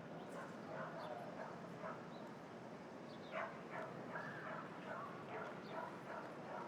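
City street ambience heard from inside an apartment: a steady traffic hum, with a run of short pitched calls over it, densest from about three seconds in.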